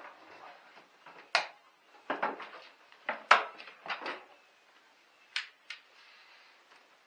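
Sharp clicks and knocks of hard parts being handled at the battery tray of a car's engine bay while a battery is installed. A cluster of knocks falls in the middle, with two quick clicks a little later.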